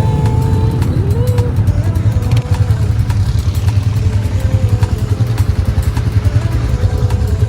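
ATV engine running steadily while being ridden, a loud low rumble with frequent sharp ticks over it.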